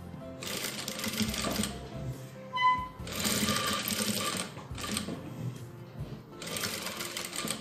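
Electric sewing machine stitching fabric in three short runs, stopping briefly between them. A brief high tone sounds once between the first two runs. Soft background music plays throughout.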